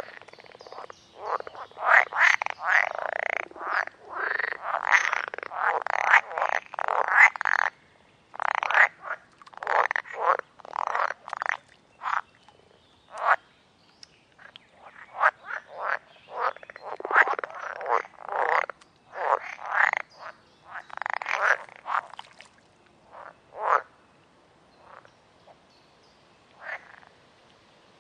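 A chorus of frogs croaking: many short, overlapping calls, dense at first, then coming in irregular clusters and thinning out to scattered single croaks near the end.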